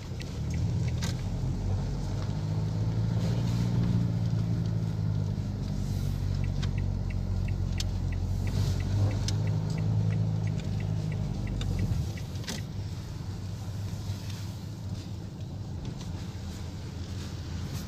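Renault Laguna heard from inside the cabin, its engine and tyres giving a steady low rumble while driving slowly. The rumble eases off about twelve seconds in as the car slows nearly to a stop. A few light ticks sound midway through.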